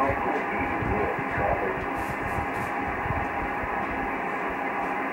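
Static and hiss from an HF ham radio transceiver's speaker on a single-sideband net, steady and cut off above the voice range, with faint garbled voices under the noise.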